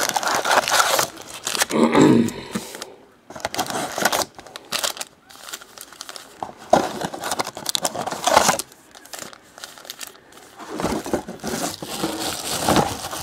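Foil-wrapped trading card packs crinkling and rustling as they are pulled from a cardboard hobby box and stacked, with some tearing of the box's cardboard. The noise comes in irregular bursts.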